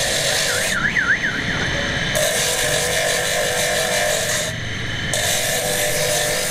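Steady workshop machine noise, a motor hum under a hiss, that changes abruptly a few times. A brief warbling, siren-like tone sounds about a second in.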